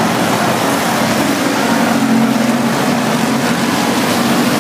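Dirt-track race cars running at speed around the oval, their engines a loud, steady drone.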